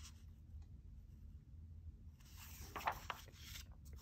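A page of a paperback comic book being turned: a short paper rustle with a few crisp crackles a little after two seconds in, lasting about a second, over faint room tone.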